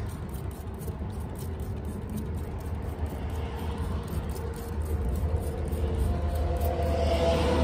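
Low rumble of a motor vehicle, growing steadily louder toward the end, with a faint engine hum coming in during the second half.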